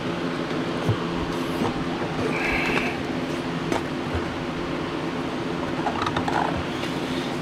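Light clicks and knocks of a screwdriver and hands working an ATV tire and inner tube onto a metal rim, with one short squeak about two and a half seconds in, over a steady low machine hum.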